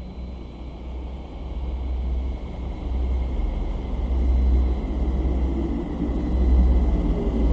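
Deep, steady rumble with a rough noisy layer above it and faint high steady tones, slowly growing louder: the eerie space-style soundtrack presented as the sound of planet Earth.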